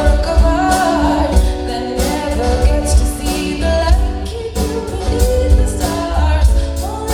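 A song playing: a singing voice over a steady bass beat with regular drum hits.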